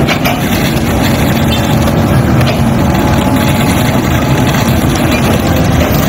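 Heavy diesel engines running steadily: a tracked excavator working with a concrete mixer truck close by.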